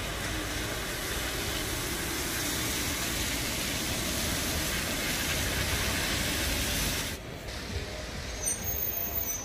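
Steady hiss of rain and car tyres on a wet street, with cars passing slowly. It cuts off suddenly about seven seconds in, leaving a quieter background with a few faint high tones near the end.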